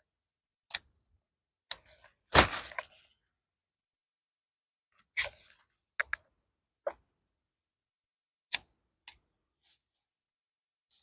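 Scattered sharp clicks and snaps with one longer rustle about two and a half seconds in: leafy greens being pulled up by the roots from wet soil and handled.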